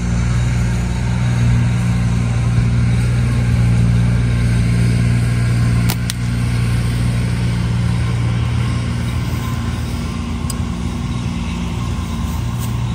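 Steady low hum of an idling engine, with a few short sharp clicks, one about halfway through and others near the end.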